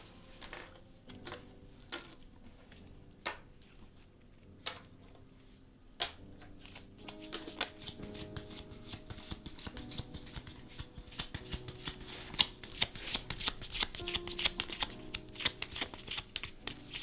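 A few separate sharp clicks of poker chips being set down on a table, then, from about seven seconds in, a deck of playing cards being shuffled by hand: a rapid run of card flicks that grows denser and louder toward the end.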